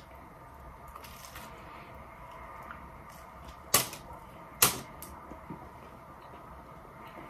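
Close-up mouth sounds of chewing a bite of fried chalupa, with two sharp crunchy clicks a little under a second apart near the middle and a few fainter ticks.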